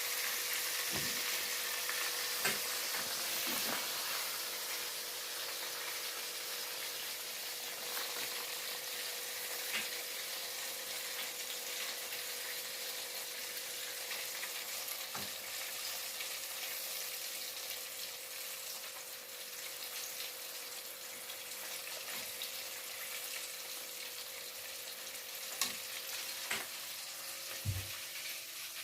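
Chicken pieces deep-frying in hot oil: a steady sizzle that slowly eases, with a faint steady hum and a few light knocks near the end.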